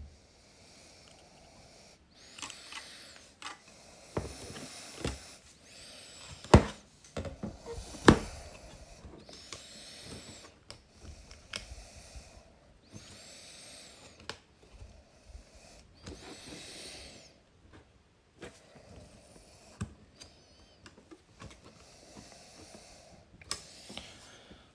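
Small plastic parts of a car's multi-function display being handled and clicked together, with short rustles and scattered light clicks. Two sharp clicks about six and a half and eight seconds in stand out as the loudest.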